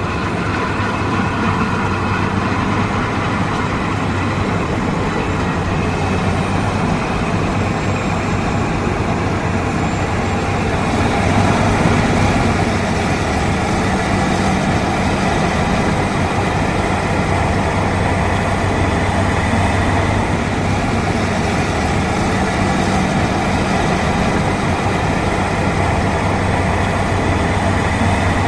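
Steady motor noise with a low hum, running without a break and swelling slightly about a third of the way in.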